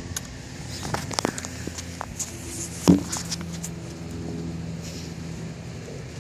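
Handling noise: a few sharp clicks and knocks about a second in, then one loud thump about three seconds in as the camera is set down on the concrete deck, over a steady low mechanical hum.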